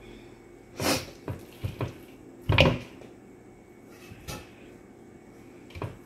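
A string of short knocks and clunks as seasoned turkey wings are laid into an air fryer basket and the basket is handled. The loudest comes about two and a half seconds in, with fainter ones after it.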